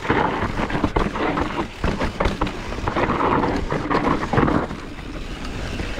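Wind noise on an action-camera microphone, with a mountain bike rattling and clattering over rough dirt trail in many short knocks.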